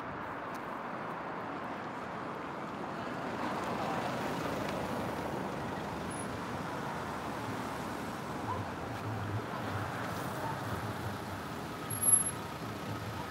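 Steady rumble of heavy lorry diesel engines idling with road traffic noise, and a brief louder sound near the end.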